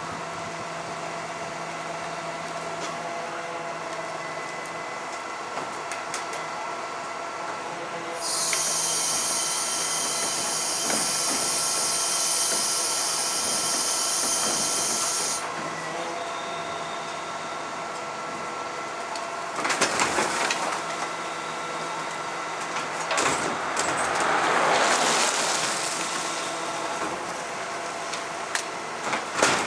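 Rear-loader garbage truck with an UrBin body running, its engine and hydraulics making a steady drone with a whine. About eight seconds in, a loud hiss starts and lasts about seven seconds. Later there are a few sharp knocks and a swell of machine noise as the lifter and packer work the bins.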